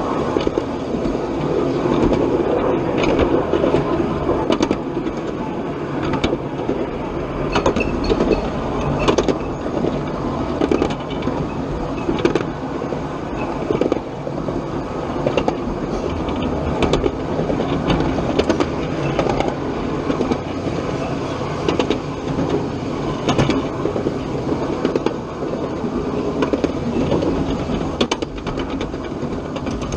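Live-steam miniature railroad train running on its track: a steady rumble with frequent sharp clicks of the wheels over the rails.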